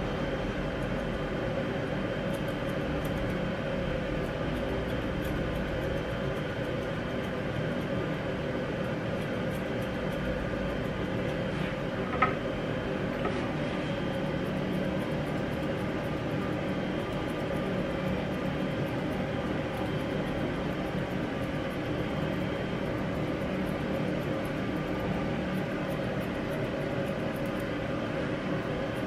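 Steady mechanical hum of a machine running in the grooming room, with faint rapid snips of grooming shears cutting a dog's fur. A single short metallic clink about twelve seconds in.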